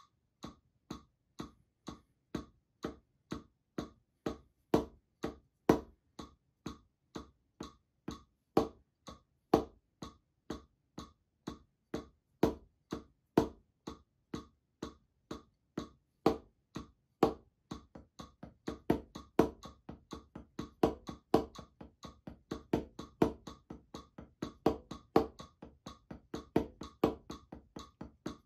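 Wooden drumsticks striking a Reflexx practice pad in an even paradiddle sticking (right-left-right-right, left-right-left-left), with some strokes accented louder. The strokes run at about two a second and double to about four a second a little over halfway through, as the quarter notes give way to eighth notes.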